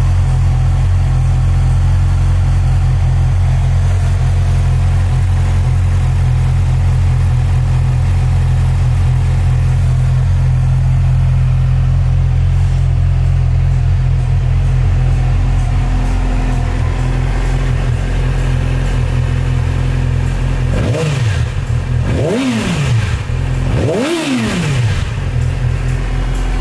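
2020 Yamaha YZF-R6's inline-four engine idling steadily, then revved in three quick throttle blips near the end, each rising sharply and dropping back to idle.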